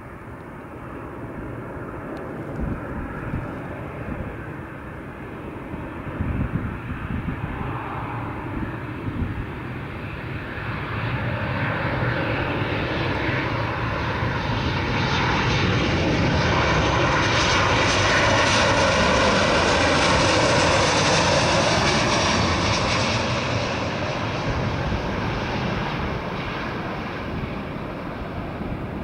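Boeing 737-800 jet on landing approach, its twin CFM56-7B turbofans running at approach power as a steady rumble. It grows louder as the plane comes close, is loudest about two-thirds of the way through, then fades as it moves off toward the runway.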